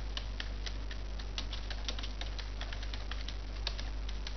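Computer keyboard keys clicking in quick, uneven strokes as a line of text is typed, over a steady low hum.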